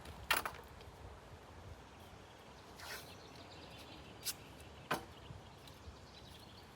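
Handling noise from rescreening a window frame: a few sharp clicks and knocks, the loudest about a third of a second in, a short scraping rustle about three seconds in, and two more clicks near the end, over a faint steady background hiss.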